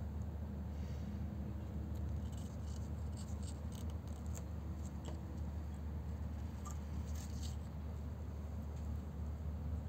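Faint, scattered scratching and clicking of a mole's claws on wooden boards and gravel as it scrabbles and climbs. The scratches come in two clusters, one in the middle and one a little later, over a steady low rumble.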